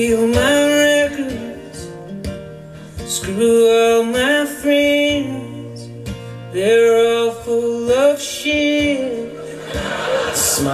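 Live recording of a singer with acoustic guitar played back over hi-fi loudspeakers: three long sung phrases with held notes over plucked guitar.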